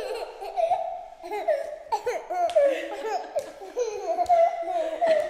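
A toddler laughing, a long string of short high-pitched giggles one after another.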